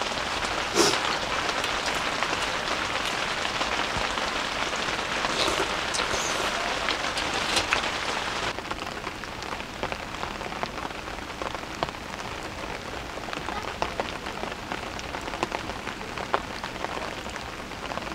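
Steady rain falling on a one-touch camping tent, with many separate drops ticking on the fabric and clear window panels. Two sharp clicks in the first second; about eight and a half seconds in the rain drops a little in level.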